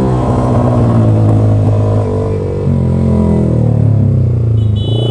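Yamaha R15 V3's 155 cc single-cylinder engine, breathing through a loud SC Project aftermarket exhaust, running as the bike slows in traffic. Its note falls off and dips about four to five seconds in, then picks up again.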